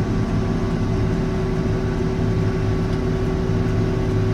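Tractor engine running steadily under the round baler, a constant drone with a steady hum.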